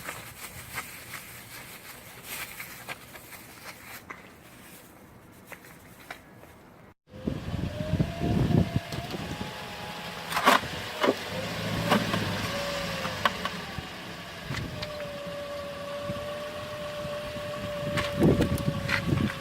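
Scattered clicks at first; then, after a brief dropout about seven seconds in, a car engine running with a whine that wavers and then holds steady over a low rumble.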